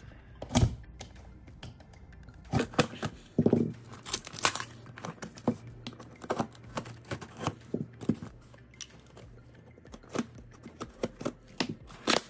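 A returned card-grading package being opened by hand: a run of short tearing and crinkling sounds with sharp clicks at uneven intervals.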